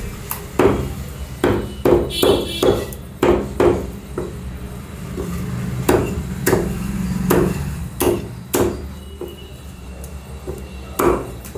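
Meat cleaver chopping chicken on a thick wooden log chopping block: about a dozen sharp chops at an irregular pace, some coming in quick runs.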